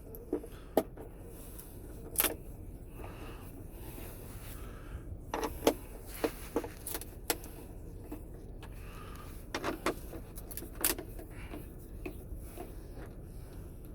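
Scattered sharp metallic clicks and clinks of hand tools and small bolts as the six bolts holding the mounting bracket to a car radio screen unit are undone, at irregular intervals.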